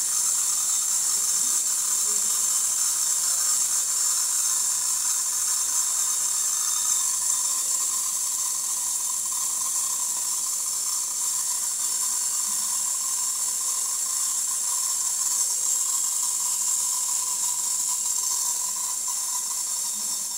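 Steady hiss, with the mechanical running of an opened, fully wound mechanical alarm clock movement as its wheel train turns.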